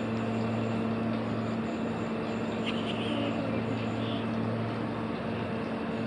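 A steady machine hum with a constant low drone.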